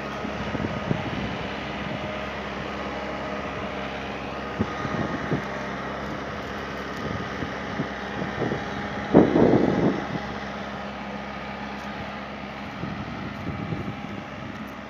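Engine of a tractor-mounted almond tree shaker with an umbrella catcher running steadily, with a few light knocks and one louder burst of noise about nine seconds in.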